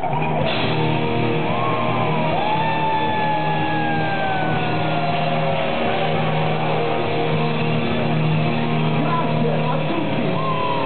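Heavy metal band playing live: distorted guitars, bass and drums, with long held notes that slide slowly down in pitch.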